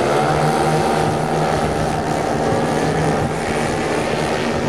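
Several model aircraft engines running together: a large-scale radio-controlled B-17 bomber model's four propeller engines at takeoff power as it rolls down the runway, steady and loud, with one engine note rising slightly near the start.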